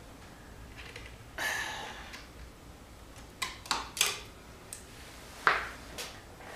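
Needle-nose pliers and copper hookup wire handled while wrapping a wire splice: a short scrape about a second and a half in, then a run of sharp small clicks, the loudest one a little before the end.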